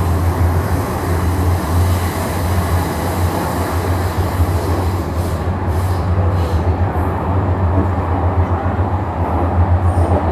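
Steady low rumble of an MTR M-train subway car running on the track, heard from inside the passenger cabin, with a few faint clicks about halfway through.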